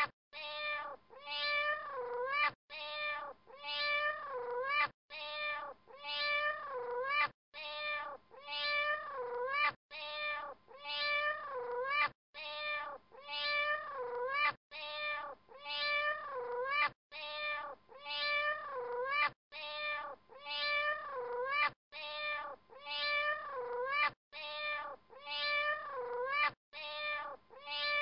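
High-pitched animal calls that dip and rise in pitch, about three to a run, the same run looping every two and a half seconds or so with a sharp break between repeats.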